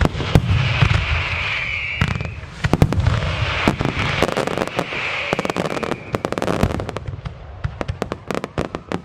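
Fireworks display: aerial shells and salutes bursting in a dense barrage of sharp bangs over a low rumble, the bangs coming thicker and faster in the second half.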